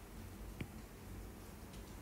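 Faint taps of a stylus on a tablet's glass screen during handwriting, two light clicks, one at the start and one about half a second in, over a low steady hiss.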